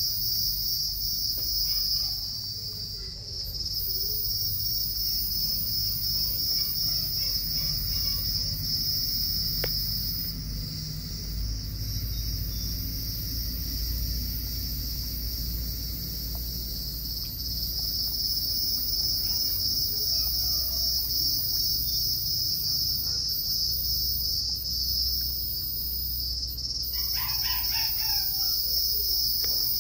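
Steady high-pitched trilling of insects throughout, over a low background rumble, with a rooster crowing once near the end.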